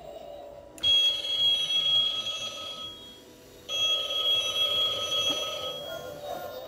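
Skull-shaped novelty telephone ringing: two electronic rings of about two seconds each, with a short pause between them.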